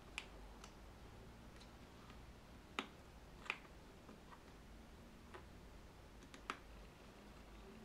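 Faint, scattered clicks of a small screwdriver working the tiny side screws of an iPhone 4S's metal frame, against near silence. Four clearer clicks stand out among a few fainter ticks.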